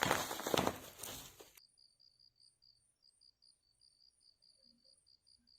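A loud burst of rustling, knocking noise that cuts off abruptly about one and a half seconds in. After it, an insect chirps in quick, even pulses, several a second, high-pitched.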